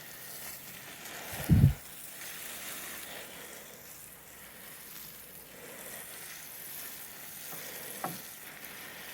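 Water sprinkling steadily from a watering can onto garden plants, with a brief low thump about one and a half seconds in.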